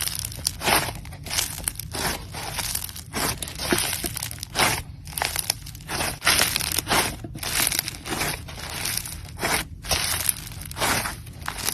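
Crunchy slime being squeezed and pressed by hand, giving an irregular run of crackles and pops.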